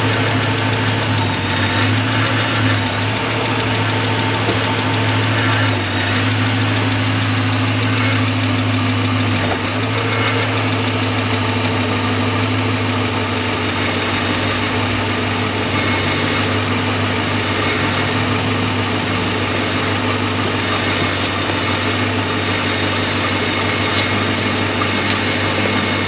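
Dodge Magnum engine running steadily near idle, with a rattle from the loose tailpipes, which are not yet bolted up at the back.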